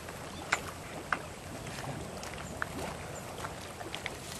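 Lake water sloshing with a few small splashes against a steady background hiss.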